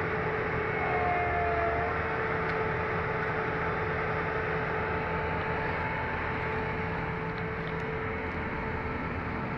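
Diesel engine and hydraulics of a grapple-armed demolition excavator running steadily, with a constant whine over the engine noise.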